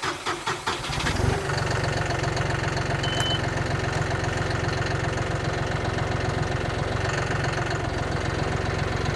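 A vehicle engine starting, with uneven firing for about the first second before it catches and settles into a steady idle.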